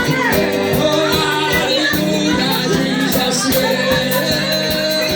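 Gospel worship music with singing voices over a steady drum beat.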